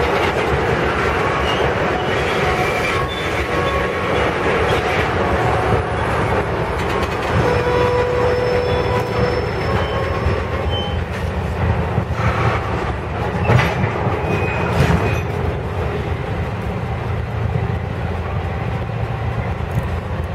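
Slow-moving Canadian Pacific freight train of tank cars and covered hoppers rolling and then standing, its diesel locomotives giving a steady low rumble. A short squeal comes about eight seconds in, and a few metallic clanks follow a few seconds later.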